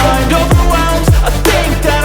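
Background music: an electronic pop track with a steady beat of deep booming kick drums and a synth melody, in an instrumental stretch between sung lines.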